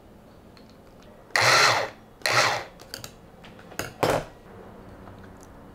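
Stick blender with a mini chopper bowl pulsed in short bursts, chopping pesto. Two half-second pulses come about a second and a half in, then two brief ones near four seconds.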